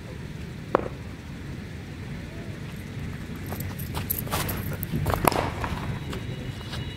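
Cricket net practice: a sharp crack under a second in, then a cluster of knocks between about four and five and a half seconds in, the loudest near its end, over a steady low background rumble.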